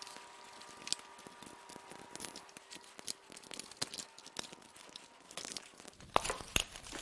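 Plastic wiring harness and connector clips rustling and clicking faintly as they are pulled loose from the top of a bare V6 engine, with a few sharper clicks about six seconds in.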